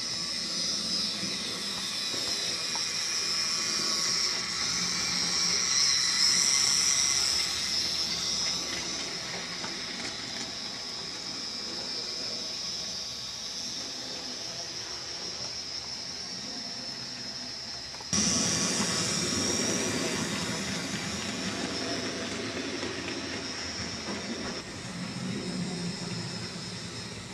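Hornby J94 OO-gauge model locomotive and its box wagons running on the track: a steady whirring hiss from the electric motor and wheels on the rails. It grows louder to a peak about six seconds in, eases off, then jumps suddenly louder about two-thirds through before easing again.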